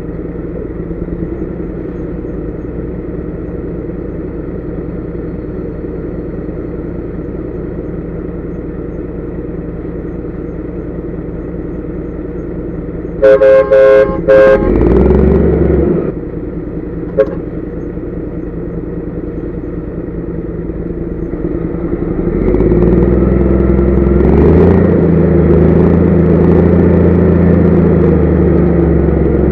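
Heavy truck's diesel engine running steadily in the cab. About halfway through, a horn gives a few short, very loud blasts. In the last third the engine revs up and holds at higher revs.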